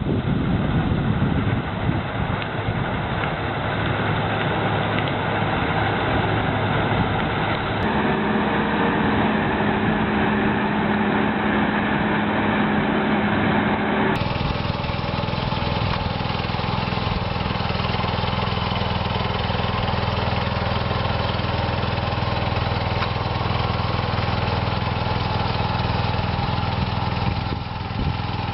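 Machine engines running steadily. The sound changes abruptly twice, about a quarter and half way through, as different recordings cut in.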